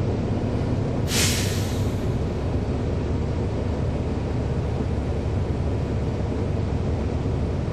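A NABI 40-SFW transit bus's Cummins ISL9 diesel engine running steadily with a low rumble, heard from aboard the bus, with a short hiss of air about a second in.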